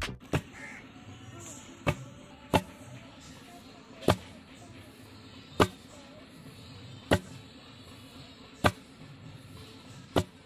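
Wooden pestle pounding paddy in a stone mortar: sharp knocks about once every second and a half as the grain is husked by hand into hand-pounded rice.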